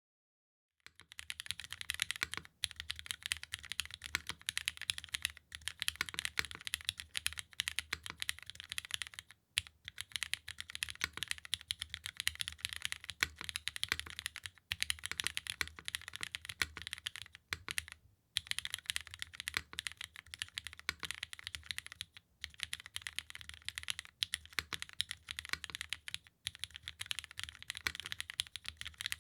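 Fast continuous typing on a top-mounted mechanical keyboard with Cherry MX2A Black linear switches, GMK keycaps on an aluminium plate and no foam: a dense stream of key clacks with a low thock underneath. It starts about a second in and breaks off briefly a few times.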